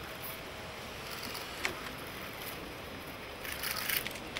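Outdoor background noise with a few sharp clicks, the loudest about one and a half seconds in, and a brief burst of hissing noise near the end.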